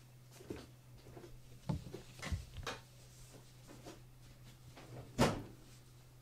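Two kittens wrestling on a soft mat: soft thumps and scuffles of their bodies and paws, a few light knocks with the loudest about five seconds in, over a low steady hum.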